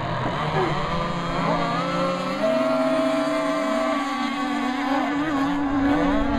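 Several radio-controlled racing catamarans running at speed, their small engines whining steadily at different pitches that shift up and down as the boats race past.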